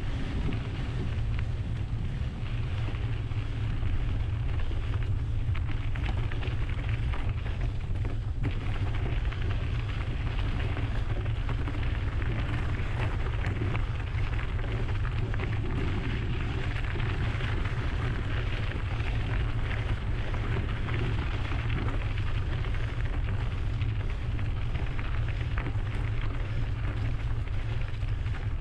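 Steady low wind rumble on an action camera's microphone over the continuous gritty noise of mountain bike tyres rolling along a trail.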